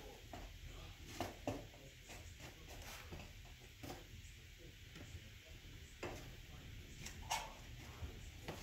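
Scattered light clicks and knocks, about six in all, the sharpest near the start and near the end, as the burning sawdust-and-wax fire starters are shifted inside the firebox of a wood-burning insert, over a faint low rumble.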